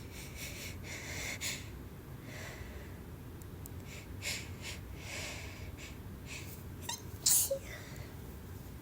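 A person sneezing: several breathy inhales and short sniffs, then a loud sneeze about seven seconds in.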